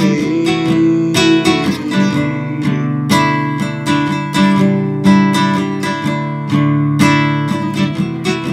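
Acoustic guitar strumming a steady run of chords: the instrumental ending of a song after its last sung line.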